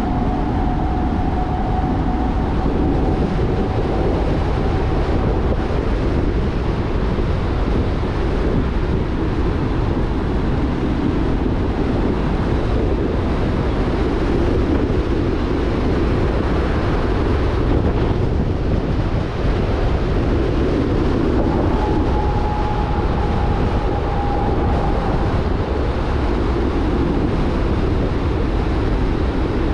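Jeep Rubicon driving at road speed: steady road and wind noise over a low rumble. A faint whine rises out of it for the first few seconds and again about two-thirds of the way through.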